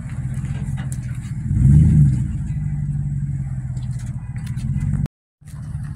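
Vehicle engine running steadily, revving up briefly about a second and a half in before settling back. The sound cuts out abruptly for a moment near the end.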